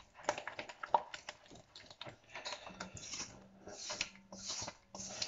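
A utensil stirring flour and baking powder into melted chocolate in a mixing bowl, working out the lumps, with quick irregular clicks and scrapes against the bowl.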